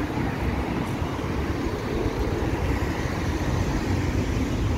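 City street traffic noise: a steady low rumble of cars and a minibus passing along the boulevard, growing slightly louder partway through.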